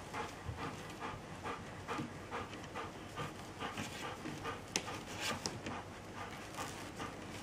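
Adult Bernese mountain dog panting, quick and even at about three breaths a second. One sharp click a little past the middle.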